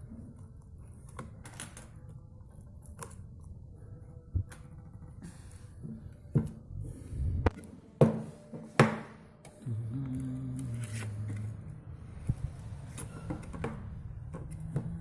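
Irregular small metal clicks and taps as a machine head's metal housing and loose screws and hand tools are handled and knocked together during hand disassembly, loudest about six to nine seconds in. Underneath runs a steady low hum, with a short droning tone a little after ten seconds.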